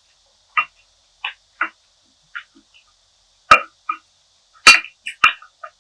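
Close-miked eating sounds: chewing with short, wet mouth clicks and snaps at an irregular pace, two of them loud, about three and a half and four and a half seconds in.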